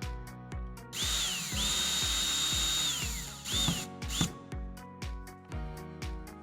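A power drill whirring: a short burst about a second in, then a longer run of about a second and a half that winds down, followed by two quick blips of the trigger. Background music with a steady beat plays throughout.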